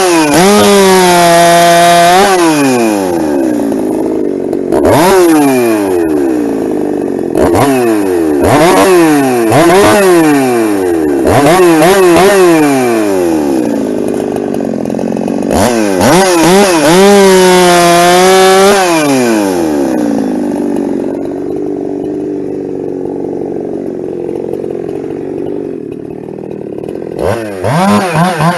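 Ported Husqvarna 372 two-stroke chainsaw at full throttle, cutting firewood. Its pitch sags again and again as the chain is loaded into the wood, then climbs back. Later it holds a steadier, lower loaded note, and near the end it is blipped in quick revs.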